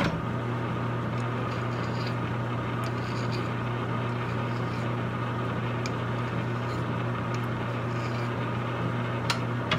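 Metal lathe running with a steady motor hum, a hand file held against a brass rod spinning in its chuck to take a burr off the threaded end.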